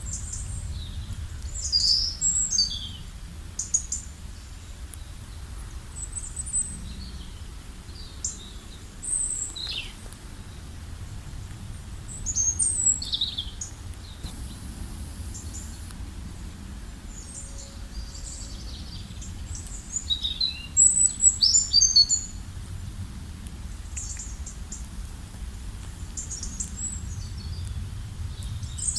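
Several small birds chirping and singing in short bursts of high, quick down-slurred notes, busiest around the middle and a little past two-thirds of the way in, over a steady low rumble.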